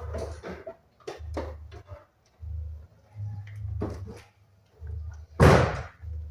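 A Chevrolet Celta's rear wheel spun by hand on its hub bearing: a low rumble comes in pulses about once a second with each push, with scattered light clicks and one loud scrape or knock about five seconds in. The bearing is checked for roar this way and judged good.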